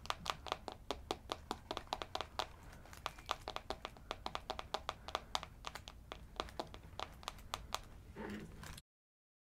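Fingernails tapping rapidly on the camera, a quick run of sharp clicks at about five a second. Near the end a brief soft rustle, then the sound cuts out abruptly.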